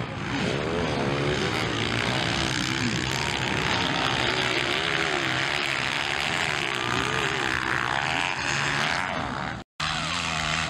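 Motocross bike engines revving up and down as riders race around a dirt track, the pitch rising and falling with the throttle. The sound cuts out for a moment near the end.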